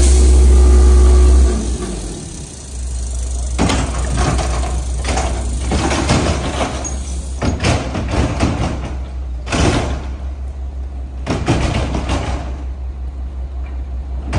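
Mack MR garbage truck's diesel engine running loud, then dropping back about a second and a half in. This is followed by repeated metal bangs and clanks as the Heil rear loader's tipper lifts a dumpster and shakes it empty into the hopper.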